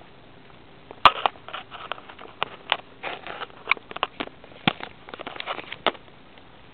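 Willow leaves and twigs brushing and crackling against the microphone in a run of irregular clicks and rustles. It starts about a second in and stops near the end.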